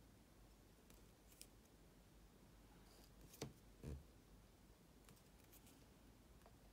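Near silence with a few faint clicks and a soft knock about halfway through: a wooden dowel dotting tool tapping in a small pot of silver paint and dotting onto a painted stone.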